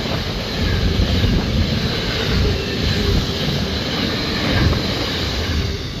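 Pacific National intermodal freight train's container wagons rolling past at speed: a dense, continuous rumble and rattle of steel wheels on the rails. It begins to ease at the very end as the last wagons go by.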